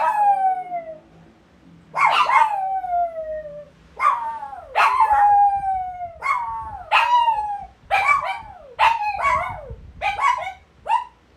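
Shih Tzus howling, about a dozen yowling calls that each slide down in pitch. The first calls are longer, and the later ones come shorter and closer together toward the end.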